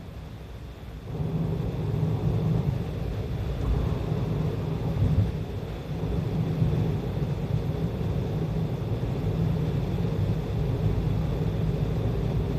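Steady low rumble of tyres and engine heard inside a car cruising at expressway speed. It dips briefly about a second in.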